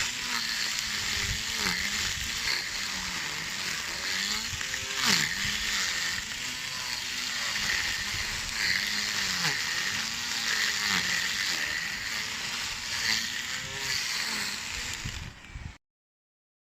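Small lawn mower running with a steady motor whine, its pitch dipping and recovering every second or so, with a sharp click about five seconds in. The sound cuts off suddenly near the end.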